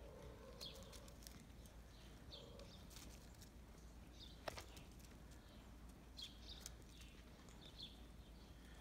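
Near silence, with faint short bird chirps every second or two and one sharp click about four and a half seconds in.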